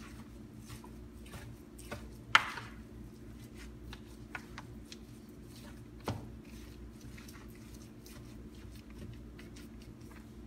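Quiet room tone: a steady low hum with scattered faint clicks, and two sharper clicks about two and six seconds in.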